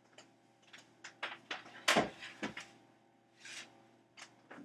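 A scatter of light knocks and clicks from things being handled, with one louder knock about two seconds in and a short rustle about three and a half seconds in.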